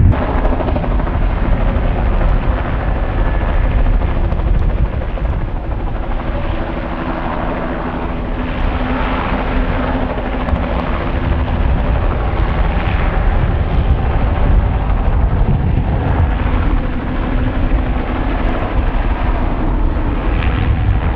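Low-flying helicopter running steadily, a continuous loud drone of rotor and engine with a few steady pitched tones in it. The drone eases slightly midway and builds again as the helicopter moves.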